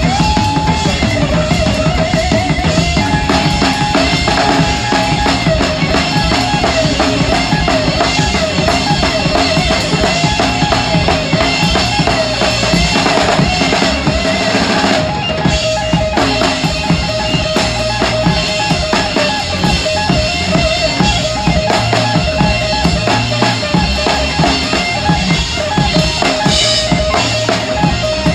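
Live rock band playing, with a large drum kit (26-inch bass drum, floor toms and big ride cymbals) loudest and close to the microphone, pounded hard with cymbals crashing. A sustained, wavering lead melody rides over the drums.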